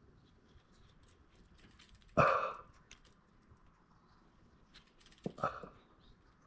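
Small clicks and rattles of seatbelt retractor parts being handled and fitted together, with a louder short sound about two seconds in and another about five and a half seconds in.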